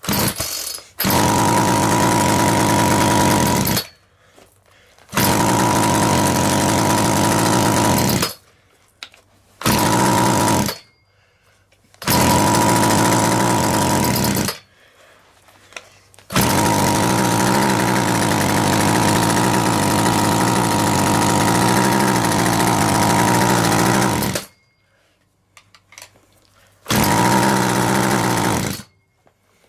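A small motor runs in about seven bursts of one to eight seconds, each starting and stopping abruptly, with a steady high whine through each burst. The longest burst runs about eight seconds near the middle.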